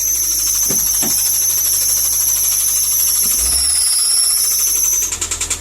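The 2010 Subaru Impreza's 2.5 flat-four runs loudly just after start-up, with a strong, steady high-pitched whine; the engine is damaged from running without oil. Near the end the sound breaks into a rapid pulsing and drops in level as the idle settles.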